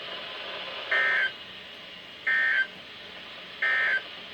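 Three short bursts of NOAA Weather Radio SAME digital data tones, each about a third of a second long and a second apart. This is the end-of-message code that closes an alert broadcast.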